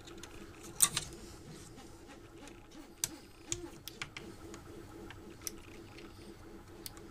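Scattered small clicks and taps from the bolt, tool and switch being handled while the endstop switch is fixed to the printer's frame, with the sharpest click about a second in. A faint steady hum runs underneath.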